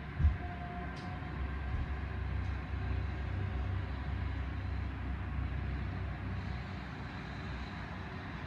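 Distant Boeing 747's jet engines at low taxi power, a steady low rumble with a faint high whine, as the aircraft turns onto the runway for take-off. A brief low thump about a quarter second in.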